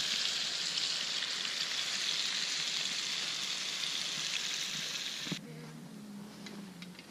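Marinated beef sizzling in a cast-iron skillet over a campfire: a steady, dense frying hiss that stops suddenly about five seconds in.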